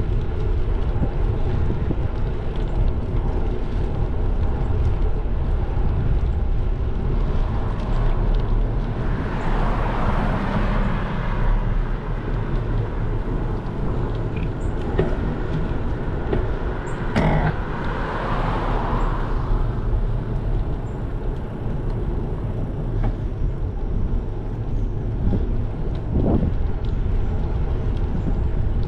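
Steady low rumble of wind and road noise from a bicycle-mounted action camera while riding on asphalt, with passing cars swelling and fading twice, about ten and eighteen seconds in.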